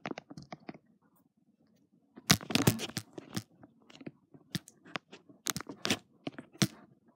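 Handling noise from an iPod Touch being moved and propped into place while recording: irregular clicks, knocks and rustling close to its microphone, starting about two seconds in.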